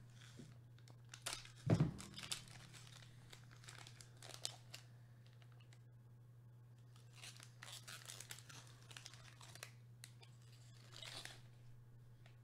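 Foil wrapper of a trading-card pack crinkling and tearing as it is worked open and the card is pulled out, in faint scattered bursts with one louder knock about two seconds in. A steady low electrical hum runs underneath.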